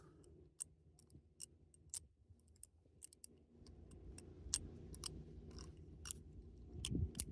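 Balisong (butterfly knife) handles and blade clicking and clacking against each other as the knife is twirled: scattered sharp clicks at irregular intervals over a faint low rumble.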